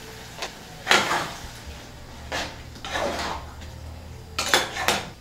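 Kitchen handling sounds: about five short knocks and scrapes of cookware and utensils being moved. The loudest comes about a second in, and a quick cluster follows near the end.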